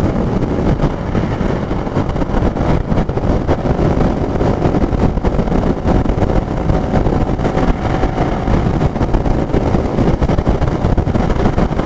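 Motorcycle riding at steady speed: a continuous rush of wind buffeting the microphone over the engine's running hum.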